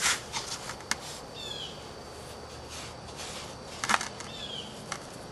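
Pieces of heat-treated chert clicking and knocking against each other as they are handled in a sand-filled roaster: a few sharp clinks, the loudest at the start and about four seconds in.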